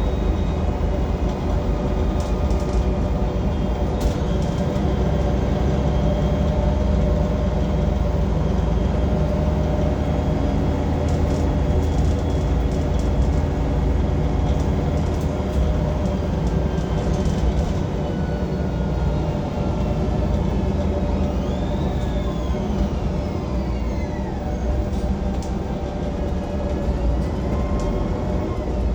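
Transperth city bus running, its engine and drivetrain giving a loud, steady low rumble. About three quarters of the way through, a high whine rises and falls, with fainter ones after it.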